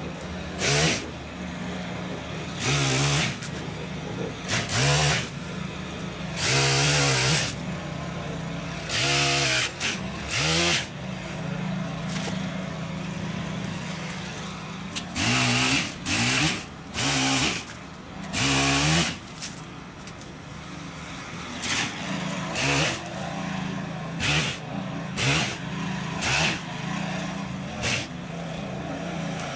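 Petrol chain saw cutting tree branches, revving up in repeated short bursts of about a second and dropping back to a steady idle between cuts.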